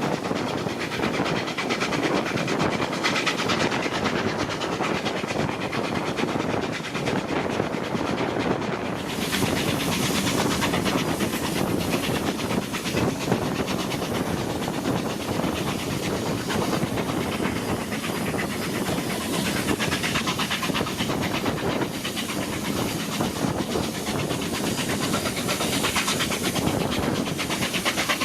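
Steam-hauled train running: a steady rush of wheel and rail noise with a hiss. The hiss grows sharper about nine seconds in.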